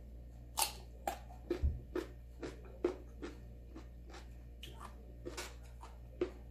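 Close-up crunching of raw green mango being chewed: sharp crisp crunches about two a second, thinning out after about three and a half seconds, with a few more near the end.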